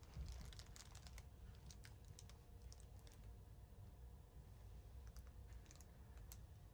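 Faint, scattered light clicks and ticks, bunched in the first three seconds and again about five seconds in, over a low steady hum.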